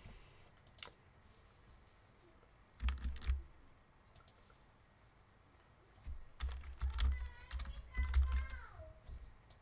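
Typing on a computer keyboard in short bursts: a brief cluster of keystrokes about three seconds in, then a longer run of typing from about six seconds in.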